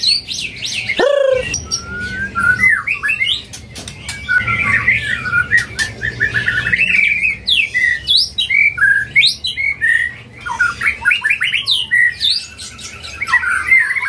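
White-rumped shama (murai batu) singing in its cage: a fast, varied run of whistles, chirps and sweeping notes, with a steep falling whistle about a second in.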